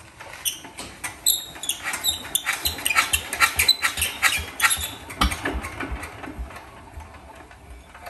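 Irregular clicks and light clattering of hands handling a two-wheel walking tractor, dense for about the first five seconds and then thinning out; the engine is not running.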